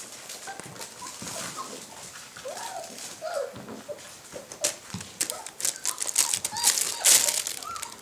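Puppies giving brief high whines and squeaks while a puppy crunches dry kibble from a bowl, with clicking and rustling throughout. The rustling of a fabric play tunnel grows louder in the second half.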